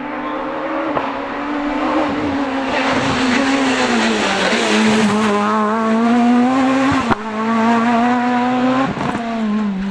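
Renault Clio S1600 rally car's four-cylinder engine at high revs, its pitch rising and falling through gear changes and lifts as it drives past, with tyre noise swelling in the middle.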